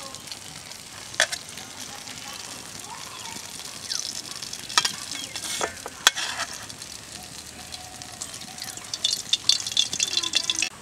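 Fried tilapia pieces sizzling in hot oil in a metal pan, with a metal spatula scraping and clinking against the pan. Sharp clinks come about a second in and again around five and six seconds in, and a quick run of scrapes and clinks near the end as the fish and oil are tipped out.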